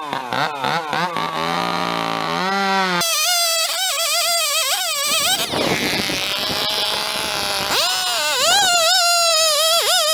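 Two-stroke chainsaw revving unevenly at low speed, then jumping to full throttle about three seconds in. Midway the pitch gives way to a rougher, noisier sound as it cuts into a board, and it runs at full throttle again near the end.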